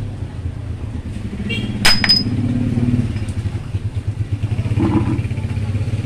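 A sharp metallic clank with a short high ring about two seconds in, and a smaller knock near five seconds, from work on a washing machine's spin-dryer basket and its steel shaft. Under them runs a steady low engine rumble.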